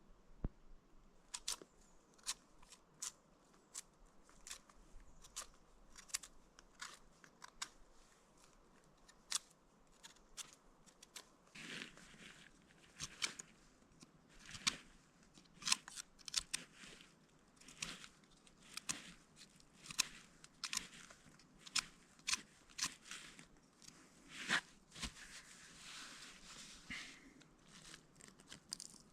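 Knife whittling a piece of birch wood: a run of short, sharp scraping cuts, roughly one a second, with a few longer shaving strokes.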